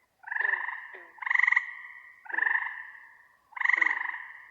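A frog croaking: four short pulsed croaks, each about half a second long, repeated roughly once a second.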